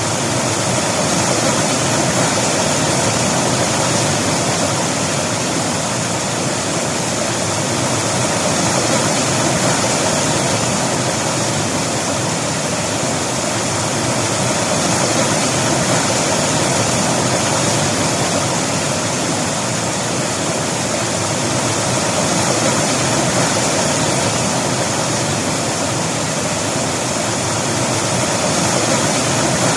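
River water rushing and splashing over rocks in a steady, loud, unbroken wash.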